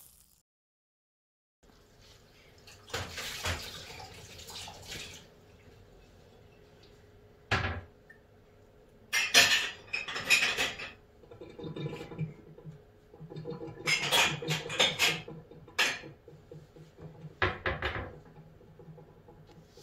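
Intermittent clattering, knocks and scrapes of objects being handled, over a low steady hum; the first couple of seconds are silent.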